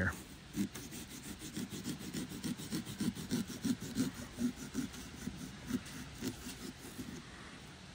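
A small serrated pumpkin-carving mini saw sawing through the pumpkin's rind and flesh in quick, repeated back-and-forth strokes that fade out near the end.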